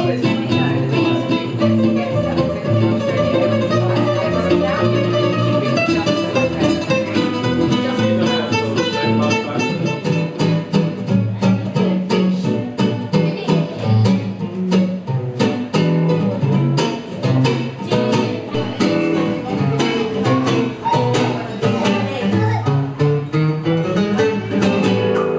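Solo nylon-string classical guitar played live: picked melody notes and chords, with passages of fast, rapid strumming in the middle.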